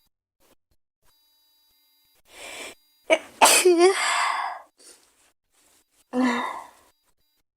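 A girl sneezing: a breath drawn in, then a loud voiced sneeze with a falling cry, followed about two seconds later by a second, shorter burst.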